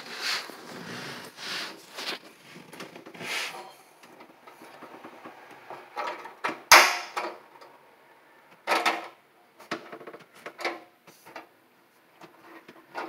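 Irregular knocking, scraping and clicking of metal sink mounting clips being handled and fitted against the sink rim and underside of the countertop, with one sharp loud knock about seven seconds in.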